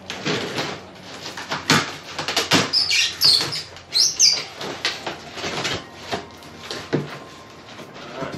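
Scissors cutting into the packing tape and packaging of a cardboard shipping box: a run of irregular snips, clicks and scrapes, with a few short high squeaks about three to four seconds in.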